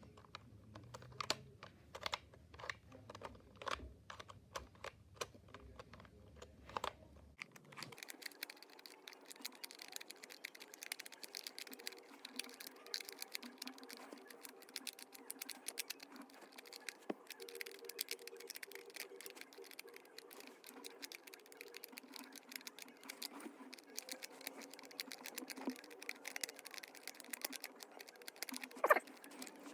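LEGO plastic pieces clicking and clacking as the tiles of a LEGO sliding Picross puzzle are pushed around, a steady run of small clicks with one louder click near the end.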